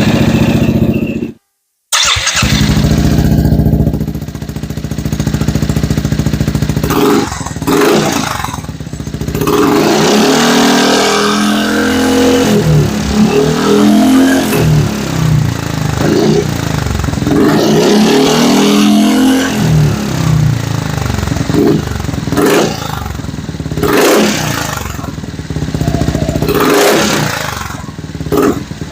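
Yamaha X-Max scooter's single-cylinder engine running, revved repeatedly with rising and falling pitch and several short throttle blips. It cuts in after a brief break about two seconds in.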